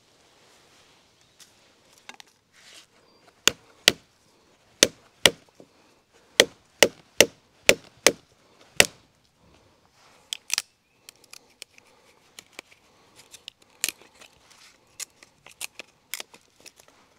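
Short-handled Beavercraft AX1 hatchet chopping into wood: about ten sharp strikes at roughly two a second, starting a few seconds in, followed by lighter scattered taps and clicks as the wood is worked.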